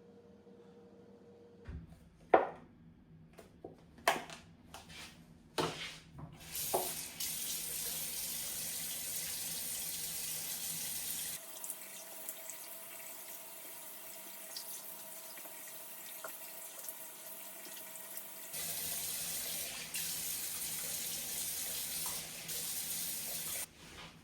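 Water tap running into a sink, a steady rushing stream, with a few sharp knocks and clicks of handling just before it starts. The flow softens and changes tone for several seconds midway, comes back fuller, then cuts off abruptly near the end.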